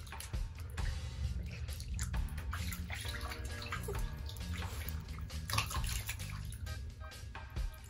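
Water running from the faucet into a bathtub as it fills, with scattered short knocks and splashes from a dog's ball play in the tub.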